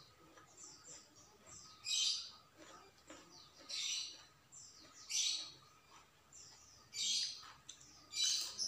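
A bird chirping over and over, a loud high call about every one and a half to two seconds with fainter short falling chirps between.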